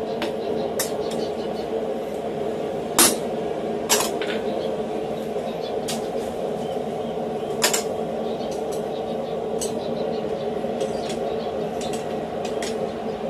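Scattered metal clinks and knocks of blacksmithing tools being set down and handled on a steel anvil block, a few sharp ones about three seconds, four seconds and eight seconds in, over a steady hum.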